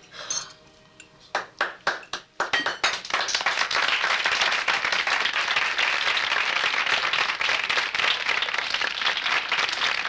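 An audience of restaurant diners applauding: a few scattered claps about a second and a half in, building quickly into steady, dense applause.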